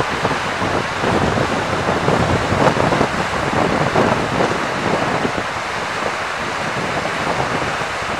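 The River Suir in flood, a steady loud rush of fast floodwater churning through rapids and under the arches of a stone bridge, with wind buffeting the microphone in gusts.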